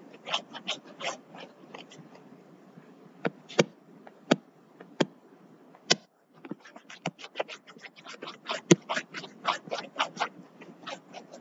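Rapid, irregular clicks and taps, typical of handling a pen tablet or mouse: a few single sharp clicks in the first half, a short pause about six seconds in, then a denser run of clicking.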